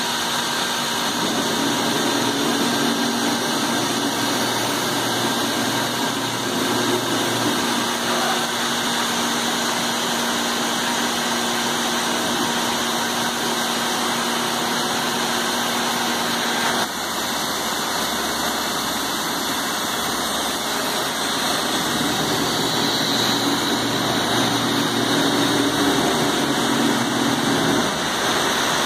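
MultiCam 3000 Series CNC router and its dust-collection hose running: a steady machine noise with a low hum. The hum cuts out suddenly a little past halfway while the running noise continues.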